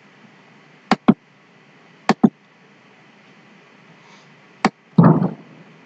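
A few sharp clicks of someone operating a computer: two quick pairs in the first couple of seconds, then a single click. A short muffled thump follows near the end.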